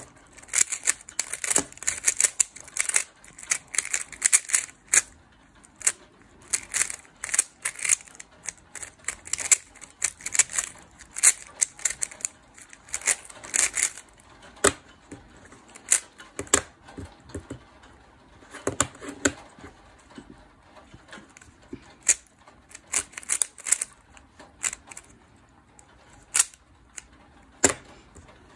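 Yulong V2 Magnetic 3x3 speedcube being turned quickly by hand: rapid runs of clacking plastic layer turns in irregular bursts, with short pauses between.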